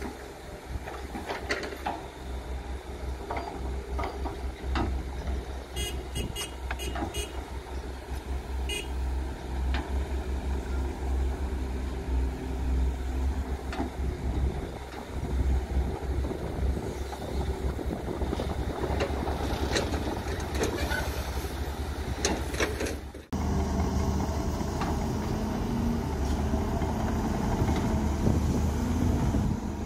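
Volvo EC210B hydraulic excavator's diesel engine running under load while it digs and swings soil, with other excavators working nearby, a low steady rumble and scattered knocks of bucket and clods. A short run of high beeps comes about six seconds in, and the sound changes abruptly a little over twenty seconds in to a steadier engine hum.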